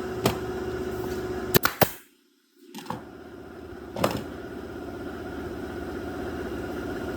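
A workshop machine's motor running at a steady pitch, with a few sharp knocks early on and another about four seconds in. The sound cuts out completely for about half a second about two seconds in, then the motor hum comes back steadily.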